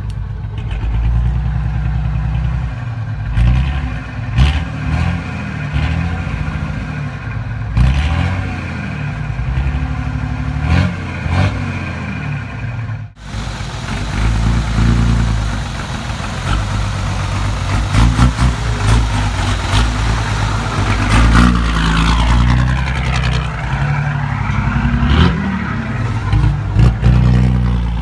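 Ford F-14000 truck's diesel engine running through a straight-through open exhaust, a loud low rumble rising and falling as it is revved and pulls. There is a brief break about thirteen seconds in.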